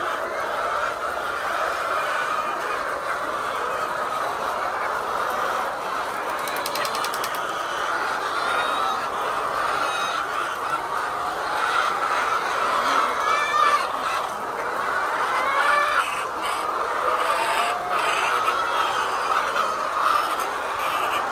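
A flock of laying hens clucking and calling together in a steady, dense chatter, with short higher calls scattered through it.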